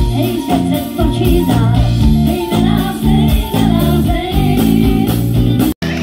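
Live pop band playing with women singing at the microphones. The sound drops out for a moment near the end.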